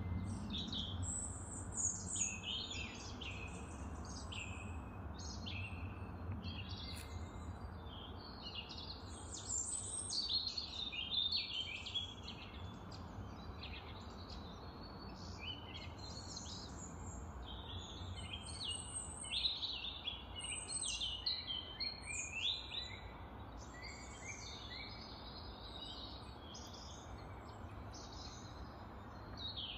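Birdsong: many short chirps and trills, one after another throughout, over a low steady hum.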